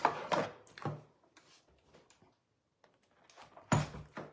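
Short clacks and knocks of plastic cutting plates and an embossing folder being handled as they come out of a hand-cranked die-cutting and embossing machine. Three clacks come in the first second, then a quiet gap, then two more knocks near the end.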